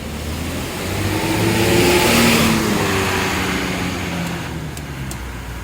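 Tour bus driving past close by, its engine accelerating as it pulls away. The sound swells to a peak about two seconds in, then fades, its pitch dropping slightly as the bus passes.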